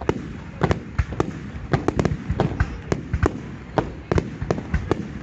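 Fireworks display: aerial shells bursting in a rapid, irregular barrage of sharp bangs, about three a second, each with a brief echo.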